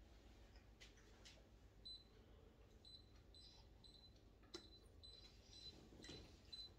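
Near silence: faint room tone with a few light clicks and a series of faint, short, high-pitched chirps from about two seconds in.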